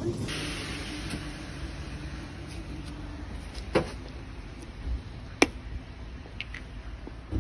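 Steady low rumble of outdoor street background, with a few short sharp clicks from handling nearby.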